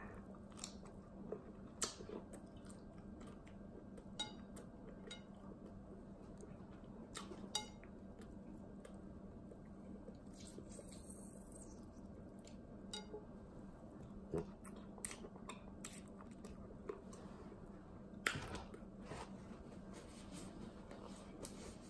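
Quiet mukbang eating sounds of a seafood boil: faint chewing and scattered sharp clicks as crab legs and shells are handled, over a low steady hum.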